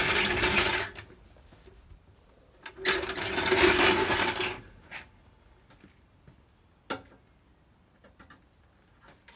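Two rasping scrapes, the first about a second long and the second nearly two seconds, followed by a few light clicks and knocks.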